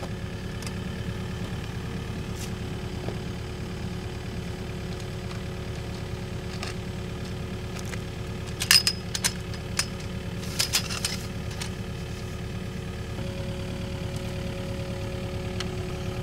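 Kubota excavator's diesel engine idling steadily. A few sharp metallic clicks come about nine and eleven seconds in, as tripod legs are set and locked.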